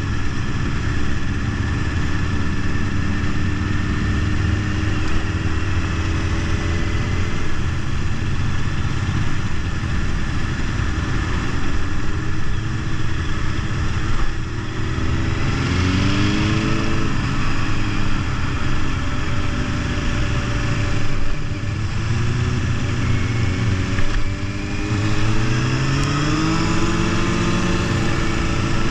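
Motorcycle engines heard from on board a moving sport bike, under steady wind rush. The engine pitch climbs twice as the bike accelerates, once around the middle and again near the end.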